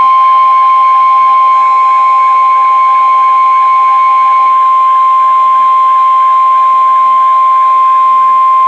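NOAA Weather Radio warning alarm tone: one loud, steady high beep held for about nine seconds that cuts off abruptly. It signals that a warning broadcast is about to follow.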